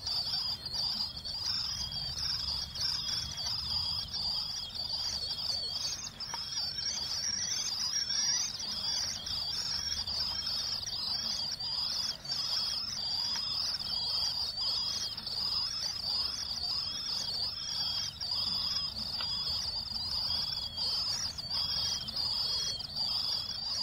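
Common swift nestlings peeping continuously and shrilly, with short notes repeated about once a second; much of the peeping comes from the slightly younger chicks in the neighbouring nest box. Rain is heard low in the background.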